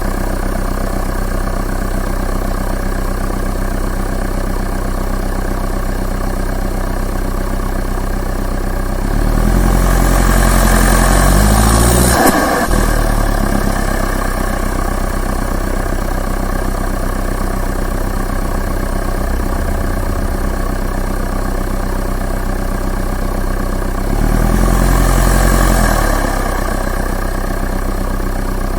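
Turbo diesel engine idling, revved twice: about ten seconds in and again near the end, each rise in pitch joined by a rushing turbo and intake hiss. As the first rev drops there is a brief turbo flutter.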